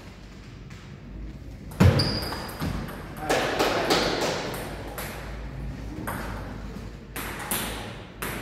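Table tennis ball clicking off bats and table during a rally, with a heavy thud about two seconds in. A few more scattered light clicks of the ball follow as play resumes.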